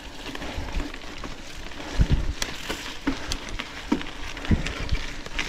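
Trek Supercaliber mountain bike ridden over a rough forest trail: a steady rustle of tyres on the ground with scattered clicks and rattles, and heavier low thumps about two seconds in and again past four seconds.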